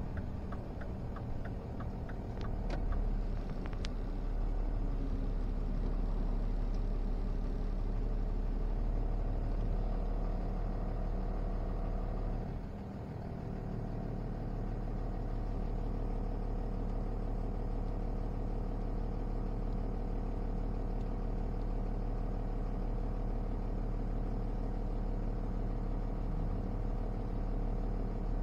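Five-ton truck's engine running, heard from inside the cab: a steady low hum with a brief dip about halfway through, after which it settles into an even note.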